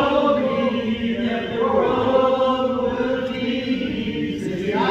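A group of voices singing together in long held notes, moving to a new note a couple of times.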